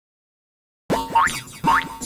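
Silence, then about a second in, cartoon boing sounds begin: rising springy glides repeating about twice a second over a steady low note, in a musical rhythm.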